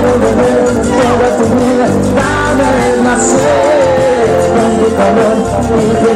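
Live cumbia band playing with a lead singer, at a steady loud level with no break.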